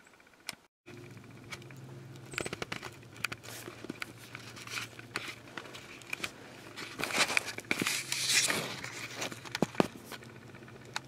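Rustling and crinkling with many scattered clicks over a steady low hum, loudest between about seven and nine seconds in, after a brief dropout near the start.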